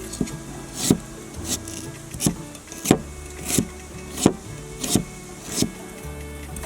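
A knife chopping on a wooden board, about eight even strokes roughly one every two-thirds of a second, stopping near the end, with background music underneath.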